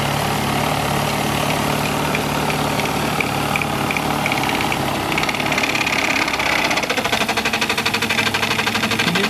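3D-printed Pelton turbine spinning under a water jet: a steady spray hiss with a low hum. About seven seconds in, a fast, even pulsing sets in.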